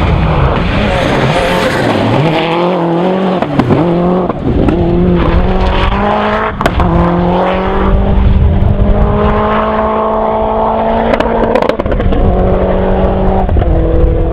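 Suzuki Swift Maxi-class rally car's engine at full throttle on gravel. The pitch dips and recovers several times over the first few seconds through quick lifts and gear changes. It then climbs steadily for about five seconds and drops at a shift near the end.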